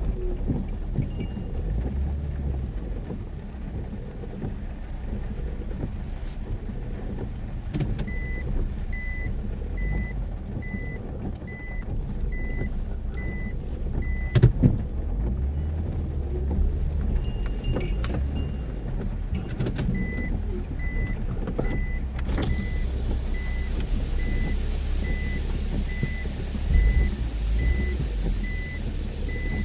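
Mitsubishi Pajero Mini driving through heavy rain on a forest road, its engine and road noise a steady low rumble with a few sharp knocks. A high electronic beep repeats about twice a second for several seconds about eight seconds in, and again from about twenty seconds in. A hiss of rain or water spray rises after about twenty-three seconds.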